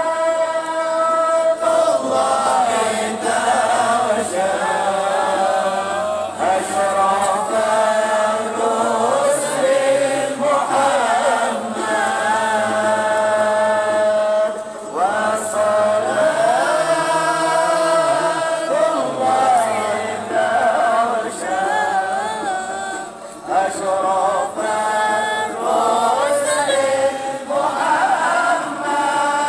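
Arabic devotional chanting (sholawat) sung together by a crowd of men, with long held, wavering notes and slow melodic glides.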